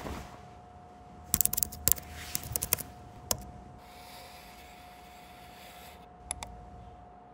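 Short sharp clicks of a laptop's keys and trackpad, in quick clusters, over a faint steady high hum, with a soft hiss between them lasting about two seconds.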